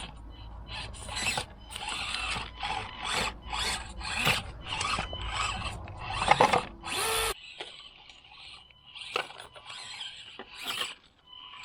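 Axial SCX24 Deadbolt mini crawler's small electric motor and geartrain whirring in short bursts as it is driven over rough ground on its medium setting. The bursts come close together at first and are sparser after about seven seconds.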